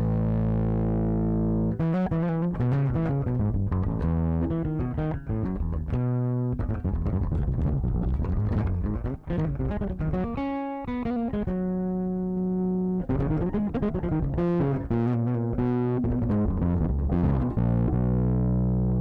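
Electric bass guitar played through an overdrive effect: a line of held low notes and quicker runs, with two brief breaks between phrases.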